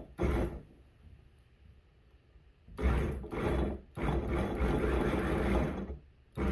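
OCTAVO electric food chopper's 300 W motor pulsed on its low setting, chopping bell pepper: a short burst just after the start, then after about two seconds off it runs again for about three seconds, with a brief break near the middle.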